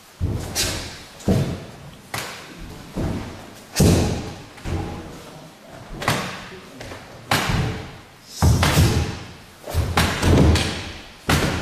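Repeated hard punches on a makiwara striking post: more than a dozen sharp thuds, roughly one every half-second to second, each ringing on in a large hall.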